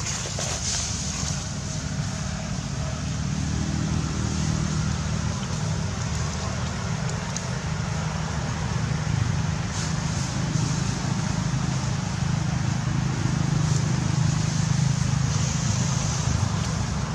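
A motor vehicle's engine running steadily, a low hum that grows a little louder after about four seconds, over outdoor background noise.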